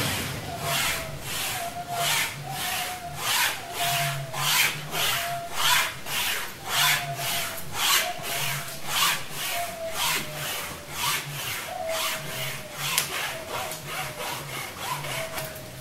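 Embryotomy wire saw being pulled back and forth through a goat's horn, about two rasping strokes a second, with a short falling squeak recurring. The wire both cuts and partly cauterises the horn tissue as it goes.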